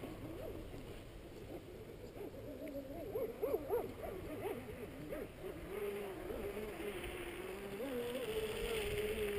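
Distant whine of an RC racing catamaran's brushless electric motors running out on open water. The pitch wavers up and down with the throttle, then holds fairly steady in the second half.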